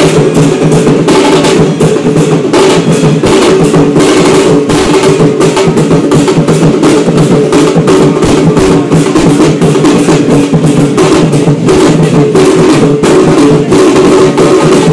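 A group of large double-headed barrel drums beaten with sticks, very loud, in a fast, dense, unbroken rhythm.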